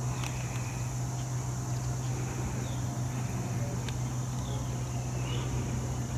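Norfolk Southern SD60E locomotive's EMD 16-cylinder diesel idling, a steady low hum that does not change, with faint chirping above it.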